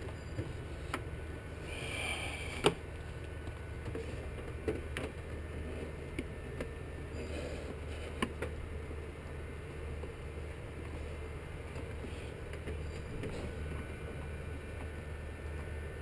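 Scattered light clicks and knocks of hand work on the intake parts, the loudest about two and a half seconds in, over a steady low hum.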